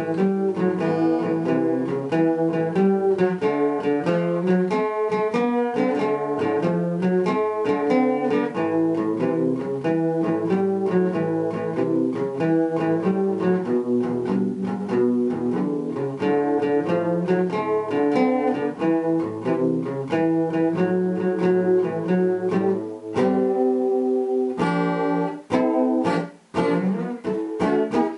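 Steel-string acoustic guitar played unaccompanied: a steady, flowing stream of picked notes and chords. Near the end it thins out to separate notes and chords with short pauses between them.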